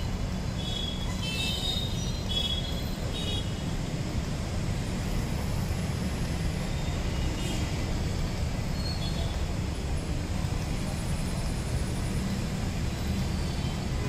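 Steady low background rumble, with a few short high chirps in the first three seconds or so.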